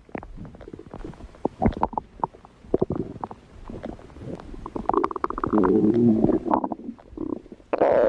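Stomach growling: a run of small pops and gurgles, then a louder, wavering growl about five seconds in, with another starting near the end.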